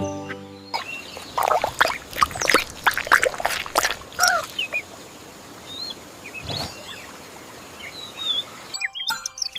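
Outdoor nature ambience with birds chirping in short, quick rising and falling calls, after a busy run of short clicks and strokes in the first few seconds. Music returns near the end.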